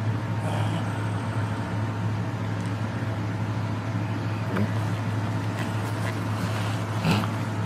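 Steady whirring hum of a box fan running, with a few short knocks from a husky puppy chewing and pawing a rubber Kong toy and a plastic cup. The loudest knock comes near the end.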